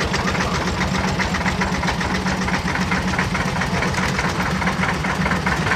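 Vintage tractor's diesel engine running steadily, a rapid even knocking beat.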